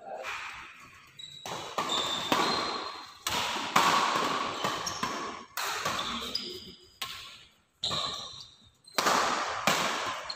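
Badminton rally: rackets striking the shuttlecock about a dozen times, a hit roughly every second, each ringing out in the echo of a large hall. Short high shoe squeaks on the wooden court come in between the hits.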